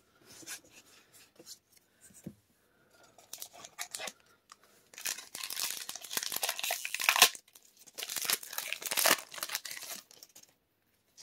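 Wrapper of a Magic: The Gathering Strixhaven set booster pack being torn open and crinkled. There is light rustling at first, then two longer bursts of tearing and crinkling about halfway through and toward the end.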